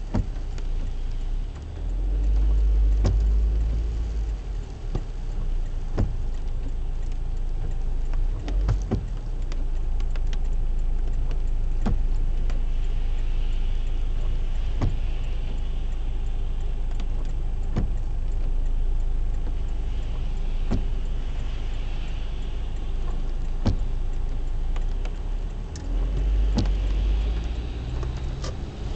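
Car driving on a wet road in rain: a steady low rumble of engine and tyres under a haze of road and rain noise, with scattered sharp clicks every second or few and a few swells of hiss.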